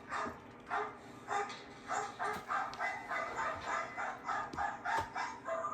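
A dog barking over and over in a quick, steady run of short barks, about two to three a second.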